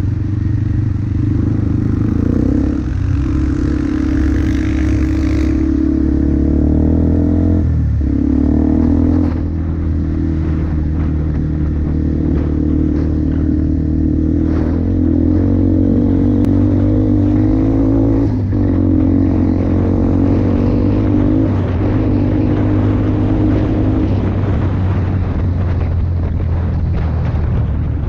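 Single-cylinder four-stroke engine of a 2004 Yamaha Bear Tracker ATV with an FMF aftermarket exhaust, running steadily under throttle while riding. The engine note eases briefly a couple of times, once about eight seconds in and again near the middle.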